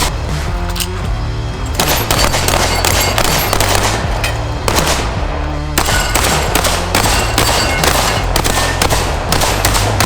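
Rapid box-fed (magazine-fed) shotgun fire, shot after shot with no long pauses, over background music with a steady bass line.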